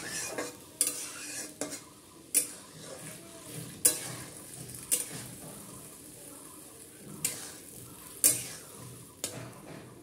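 Flat metal spatula stirring boiled jute leaves in a metal kadai, knocking and scraping against the pan with sharp clanks about once a second, quieter for a couple of seconds midway. Underneath, the greens sizzle faintly in the hot oil and liquid.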